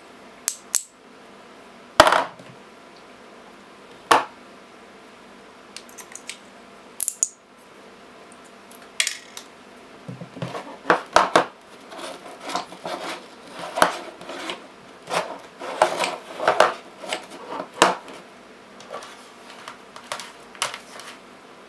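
Cylindrical 18650 lithium-ion cells clinking and clicking as they are picked up, turned over and set down on a hard surface while being tested. A few sharp taps at first, then a busy stretch of clattering from about ten seconds in that thins out near the end.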